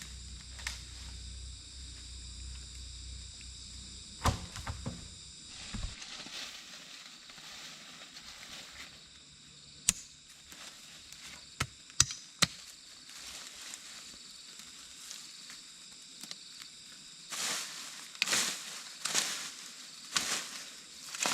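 Insects droning steadily in a high pitch, with scattered sharp knocks and, in the last few seconds, a run of louder rough strikes.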